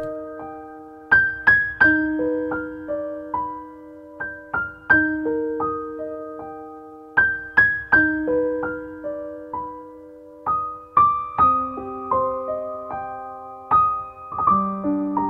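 Background music: a gentle piano tune of single struck notes that ring and fade, with a short phrase repeated.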